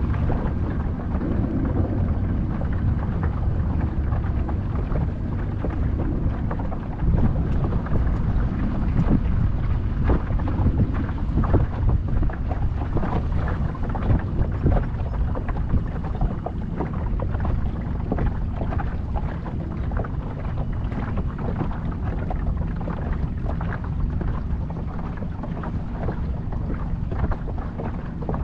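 Motor boat's engine running steadily under way, under a heavy low rumble with irregular gusty buffeting from wind on the microphone.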